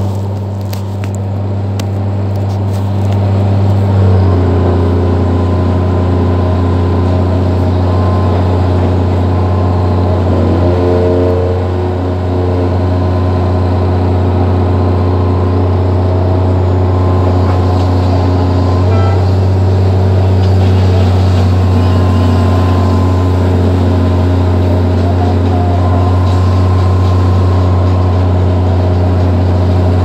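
Hydraulic excavator's diesel engine running steadily, heard from inside the operator's cab, as the hydraulics work the boom to lift a concrete bucket. Its note shifts and thickens about four seconds in, then holds steady.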